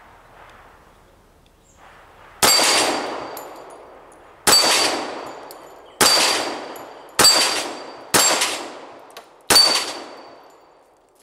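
Six .45 ACP pistol shots from a Ruger American Pistol, each hitting a steel knockdown plate with a sharp metallic clang and a high ring that fades over about a second. The hits come at uneven intervals of one to two seconds, and all six plates are knocked down.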